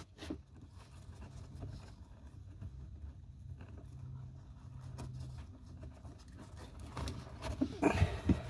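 Nylon webbing strap and plastic buckle of a kayak hip pad being handled and fed through: faint rustling and scraping over a low steady hum, louder near the end.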